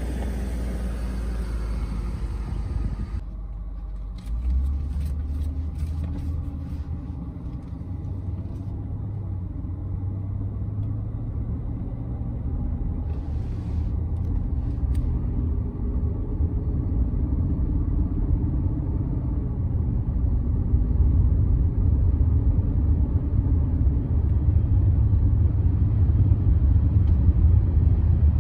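A 1998 BMW 740iL's V8 running, heard first from the roadside with wind on the microphone as the car drives by. After a sudden cut about three seconds in, it is heard from inside the cabin as a low engine and road rumble that grows steadily louder as the car drives on.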